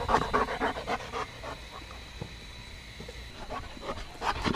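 German shorthaired pointer panting fast, about five breaths a second, while playing fetch; the panting eases off about a second and a half in and picks up again near the end.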